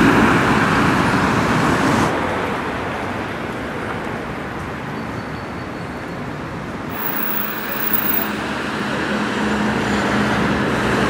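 Road traffic on a city street: a steady rush of passing cars and engines that fades a little mid-way and builds again, with a low engine hum coming up near the end.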